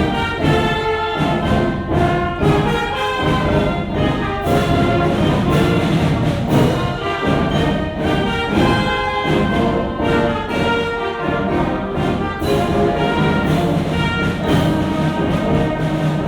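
Loud orchestral music with prominent brass, many instruments playing held chords together.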